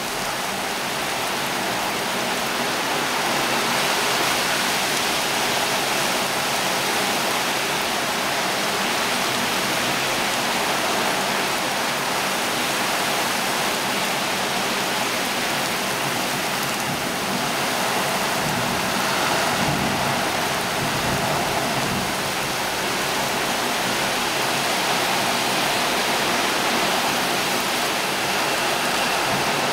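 Heavy rain pouring steadily onto wet ground, an even hiss of the downpour.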